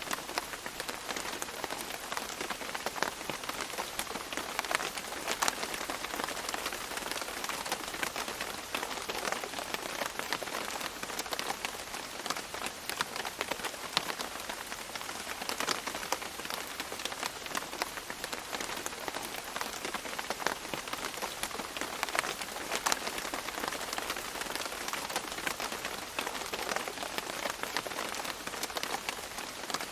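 Steady tropical rain falling on leaves: a continuous patter with many separate drops ticking close by.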